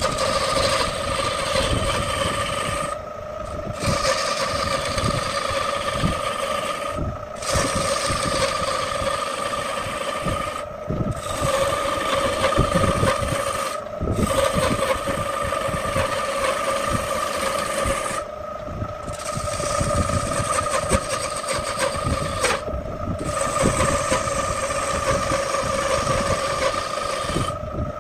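Wood lathe running with a steady hum while a long-handled turning tool scrapes and cuts into a spinning wooden plate. The cutting breaks off briefly every few seconds as the tool comes off the wood, and the hum carries on.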